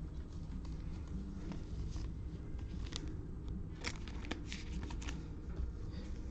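Cello trading-card pack wrapper crinkling and cards being handled, in a cluster of short crackles a few seconds in, over a steady low hum.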